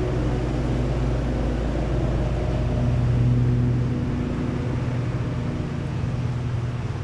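Many honeybees buzzing around an open hive: a dense, steady drone that swells slightly about three seconds in.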